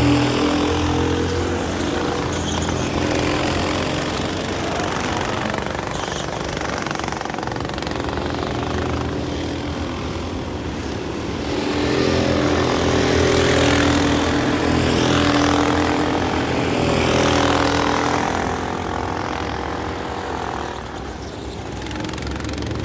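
Several go-kart engines running as the karts race around the circuit, their pitch rising and falling as they accelerate and slow through the corners. The sound swells as karts pass close in the second half.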